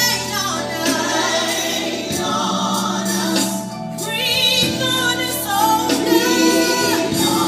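Gospel song: a choir singing over steady instrumental backing.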